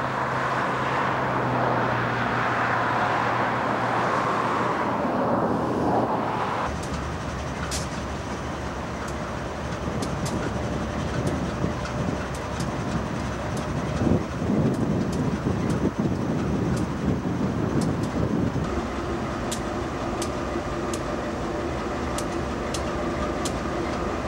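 Freight train rolling past on the rails, with a dense rushing noise and a steady low hum. About six and a half seconds in it cuts to a close-by Conrail-painted GE Dash 8-40CW diesel locomotive running, a lower rumble with scattered sharp clicks; steady tones join near the end.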